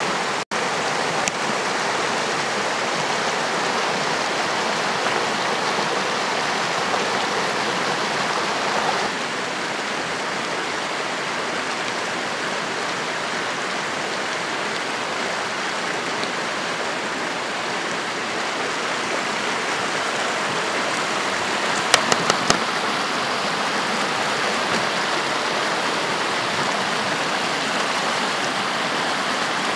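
Steady rushing of a shallow mountain stream pouring over rocks. The sound changes abruptly about nine seconds in. Around 22 seconds in there is a quick run of four clicks.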